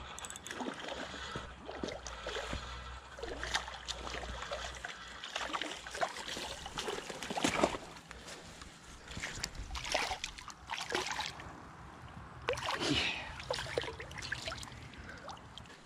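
A hooked bass splashing at the water's surface as it is played in, with irregular splashes, knocks and rustles; the loudest come in short bursts about a third, two thirds and four fifths of the way in.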